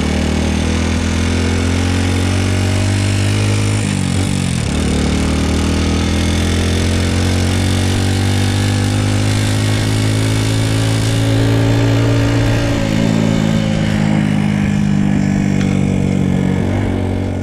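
Honda Super Cub's single-cylinder four-stroke engine running on the road, which the owner says makes an abnormal noise. Its pitch dips and recovers about four seconds in and changes again about thirteen seconds in.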